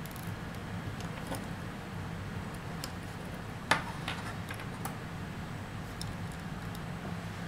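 Light clicks and taps from an opened iPod Nano and small parts being handled on a wooden desk, a few faint ones and one sharp click nearly four seconds in, over a steady low hum.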